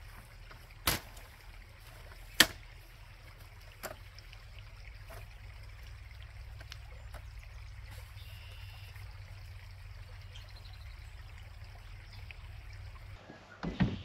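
Coleman folding camp chair being opened: a few sharp clacks from its frame in the first five seconds, the loudest about two and a half seconds in, over a steady low rumble.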